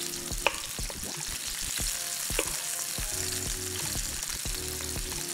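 Sausage frying in olive oil in a hot pan: a steady sizzle with many small crackling pops of spitting fat.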